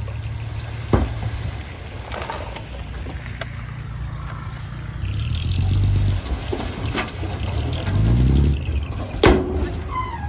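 Diesel engine of heavy earthmoving machinery running under load, revving up twice, with sharp metal clanks about a second in and near the end.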